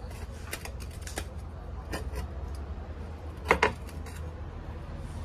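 Scattered clicks and knocks of garden soil being worked by hand around seedlings, the loudest a quick double knock about three and a half seconds in, over a low steady rumble.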